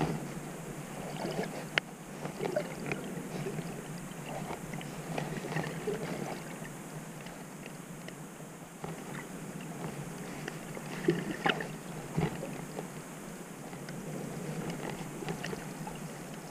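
Underwater sound picked up by a camera in a waterproof housing: a steady water hiss with scattered small clicks and crackles, and a cluster of sharper clicks about eleven seconds in.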